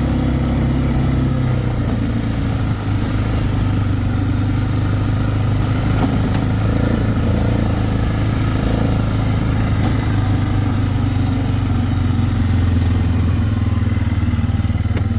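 Four-wheeler (ATV) engine running steadily, its note shifting slightly about a second and a half in and then holding even.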